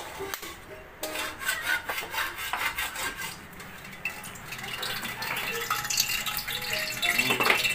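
Metal ladle scraping and clinking against a steel wok as food is stirred, with a quick run of strokes in the first half.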